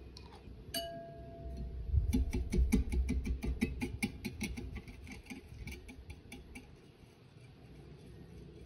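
Wire whisk beating eggs and sugar in a glass bowl: a quick run of light ticks as the wires strike the glass, several strokes a second, loudest at first and fading out after a few seconds. Before the whisking, a single glassy clink with a short ring.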